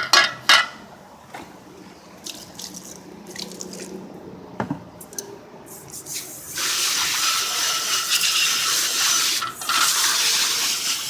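A few knocks and clinks of metal engine parts being handled. Then, from about six and a half seconds in, a steady spray of water rinses the cleaned parts, with a brief break near the end.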